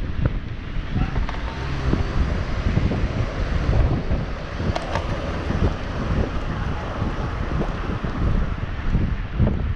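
Wind buffeting the microphone of a camera riding along on a moving bicycle, a steady, fluttering low rumble with a lighter hiss above it. A single sharp tick sounds about five seconds in.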